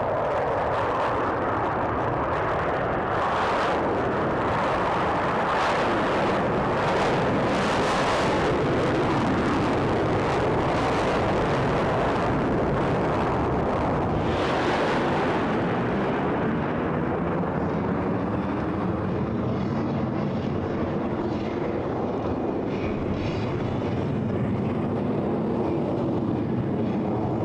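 Jet engines of a formation of F-16 Fighting Falcon fighters roaring continuously during takeoff and climb-out, with a wavering, swirling quality. About sixteen seconds in the roar turns duller as its hiss fades.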